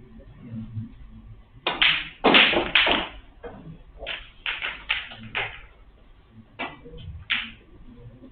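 Scattered applause from a few people: sharp hand claps in three short runs. The first run, about two seconds in, is the loudest. The clapping greets the black being potted in a snooker break.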